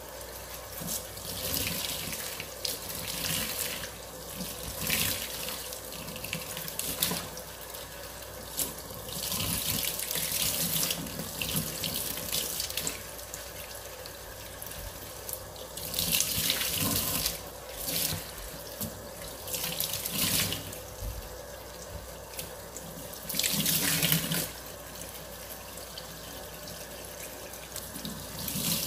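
Running water splashing, swelling into louder surges every few seconds, over a faint steady hum.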